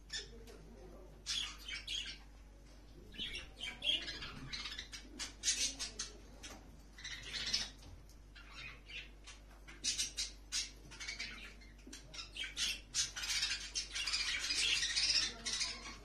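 Young budgerigar chick, still in pin feathers, calling in many short, high squawks and chirps. The calls come in irregular bunches, with a longer unbroken run near the end.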